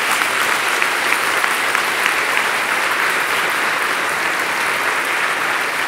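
Large audience applauding steadily, a dense even clapping.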